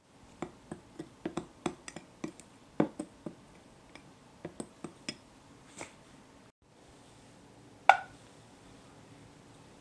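A metal spoon clinking and scraping against a small glass bowl, about a dozen light clinks, while stirring dry kinako sugar. Near the end, one louder knock with a short ring on a stainless steel saucepan.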